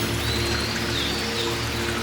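Ambient meditation music of long held, droning chords over a steady patter of rain, with high gliding chirps coming every second or so.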